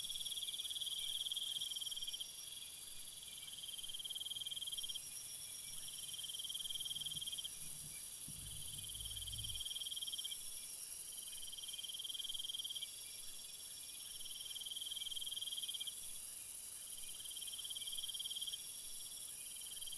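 Night insect chorus of crickets and other insects: a steady, very high shrilling under a lower trill that comes in repeated phrases of a second or two with short gaps between.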